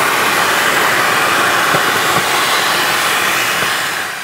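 Home-built 98 mm, seven-grain N3100 solid rocket motor firing nozzle-up on a static test stand: a loud, steady rushing noise that begins to fade near the end as the burn tails off.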